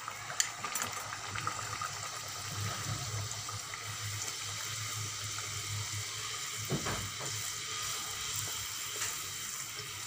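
Poori deep-frying in hot oil: a steady sizzle with bubbling, with a few light clicks in the first second.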